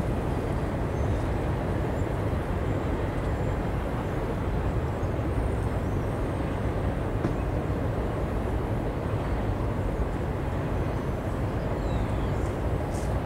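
Distant freight train crossing a long steel truss bridge: a steady low rumble with no breaks.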